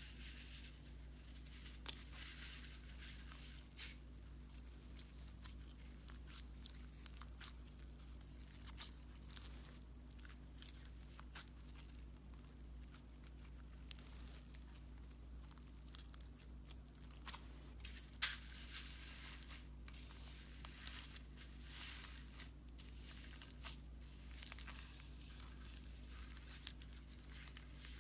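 Slime being handled and squeezed, giving faint, irregular crackling and clicking pops, with one sharper click about 18 seconds in. A steady low hum runs underneath.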